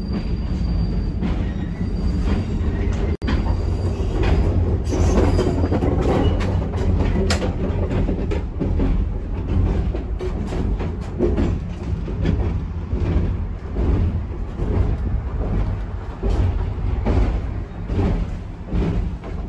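Electric trolley car running on track, heard from inside the car: a steady low rumble of wheels and running gear with repeated clicks, and a faint high wheel squeal in the first few seconds.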